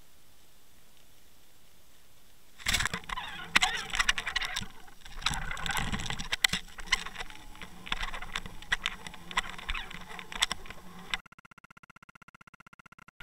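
Water noise picked up by an underwater camera on a fishing line. A steady hiss gives way about three seconds in to dense crackling and clicking with sharp knocks, and near the end to a faint, evenly pulsing buzz.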